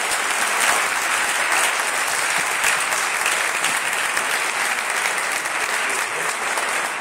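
Audience applauding: a dense, steady patter of many hands clapping, easing off slightly near the end.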